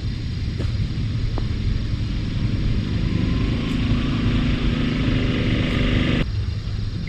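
Golf cart running, a hum and hiss building from about two seconds in over a steady low rumble, cutting off abruptly near the end.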